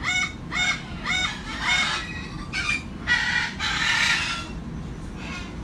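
Umbrella cockatoo calling: short pitched calls repeated about twice a second, then a few harsher, noisier screeching calls, the longest about three to four seconds in.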